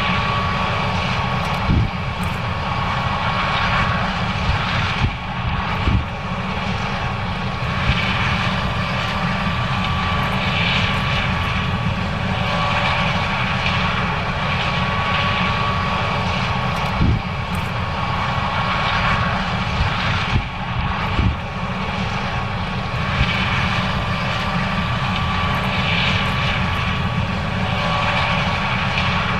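John Deere S790 combine harvester running steadily while harvesting corn: a constant engine and machinery drone with a steady high whine. A few brief knocks come through it.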